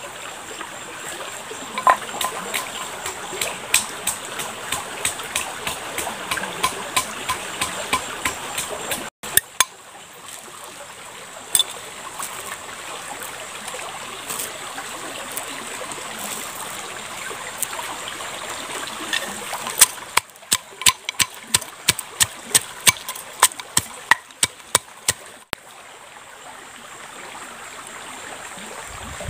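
A wooden pestle pounding chilies and garlic in a mortar, in two runs of quick knocks about two to three a second, the first in the opening third and the second near the end. A steady rush of flowing stream water is heard throughout.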